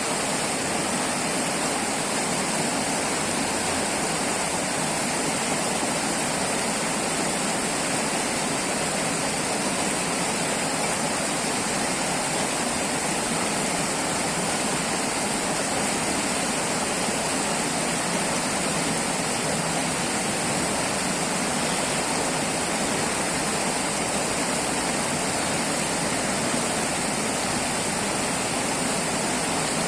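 River water flowing steadily: an even, unbroken rush of water noise.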